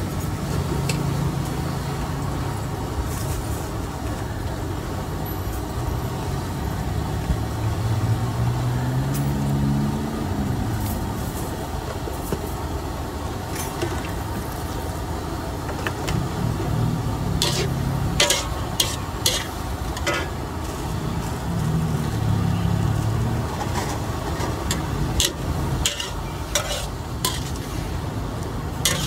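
Napa cabbage sizzling in a large aluminium wok, with a steel spatula scraping and clanking against the pan, the sharp clanks coming thick and fast in the second half. Under it runs a steady background noise with the drone of passing vehicle engines, one rising about a third of the way in.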